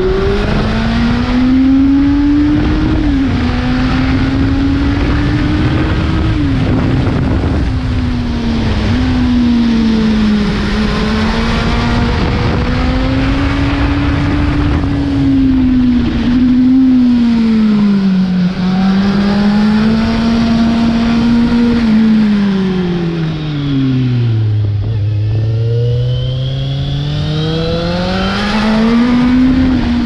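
2005 Kawasaki Z750's inline-four engine through a full carbon exhaust with the dB killer removed, heard from the bike while riding. The revs rise and fall with each upshift, settling between bends, then drop to low revs through a tight bend near the end before climbing again.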